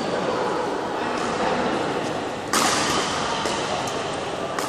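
Badminton racket striking a shuttlecock: one sharp crack about halfway through with a short ringing tail, and a lighter tap near the end, over the steady background noise of the hall.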